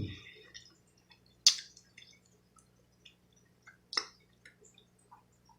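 Wet mouth sounds of close-miked chewing: lip smacks and sucking clicks, the two loudest about one and a half and four seconds in, with small ticks between, over a faint steady hum.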